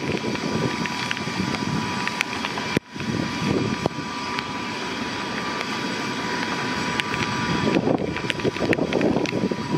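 Sikorsky S-92 helicopter running on the ground with its main rotor turning: the steady whine of its twin turboshaft engines over the rotor noise. Gusts of wind noise buffet the microphone, and the sound drops out briefly about three seconds in.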